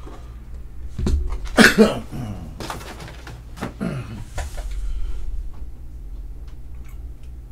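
Light clicks and taps of a plastic magnetic card holder being handled and set down, over a steady low hum. A man's short wordless vocal sounds are the loudest thing, about a second and a half in and again near four seconds.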